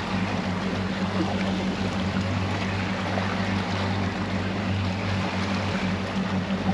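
Twin Mercury outboard motors running slowly at trolling speed, a steady low hum, with water washing past the hull and wind.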